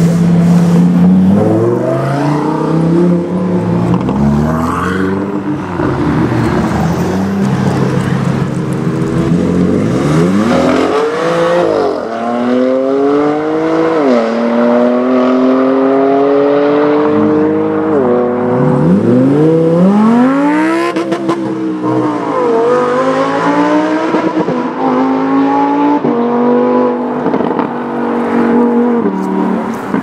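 Lamborghini Huracan Performante Spyder's V10 engine accelerating hard, again and again. The pitch climbs through each gear and drops sharply at every upshift, with a long pull near the end.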